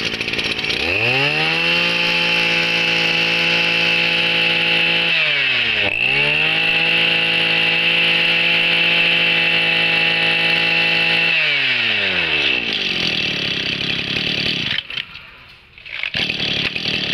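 Mitsubishi TL201 20cc two-stroke brush cutter engine revved to a steady high speed, let off briefly about five seconds in, revved up again and held for about five seconds, then dropped back to a rough low-speed run.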